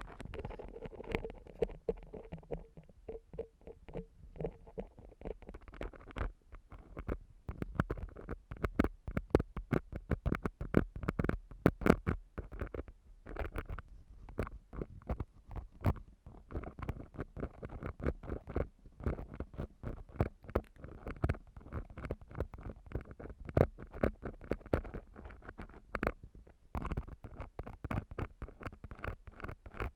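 Ear-cleaning tools (a metal ear pick or a cotton swab) scraping and rubbing on a microphone as if in an ear canal: a dense, irregular run of crackly scratches and soft thumps with a low rumble underneath.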